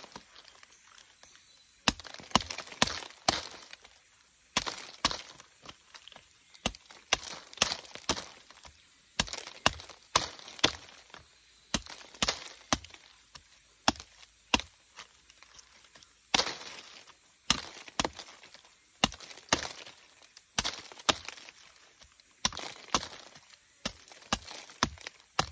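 Machete chopping the sharp spines off a red-spined Dayak durian, blade on husk and spines: a long irregular run of sharp chops, roughly one or two a second.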